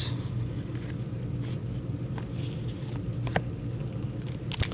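Trading cards and foil packs being handled by gloved hands: a few faint taps and clicks, with a sharper click near the end, over a steady low hum.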